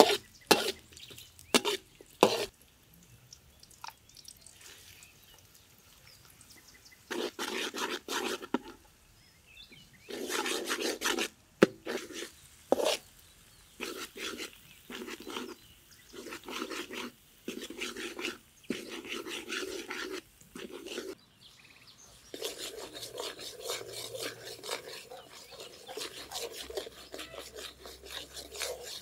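Metal spatula scraping and knocking against a wok while garlic and chilies stir-fry in oil: a few sharp clicks in the first couple of seconds, then repeated bursts of scraping. For the last several seconds a steadier sizzling as the sauce bubbles in the wok.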